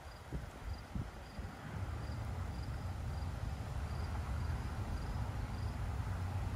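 A cricket chirping faintly and steadily, about three chirps every two seconds, over a low rumble that builds about a second and a half in and stays steady. A few soft low thumps come in the first second.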